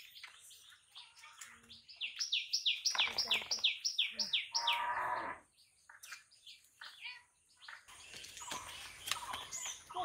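A bird calling a quick run of about a dozen short, falling notes, roughly four a second, lasting about three seconds from about two seconds in.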